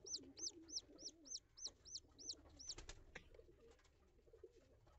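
Newly hatched chicken chick peeping: a quick run of short, high peeps, about three a second, that stops about three seconds in.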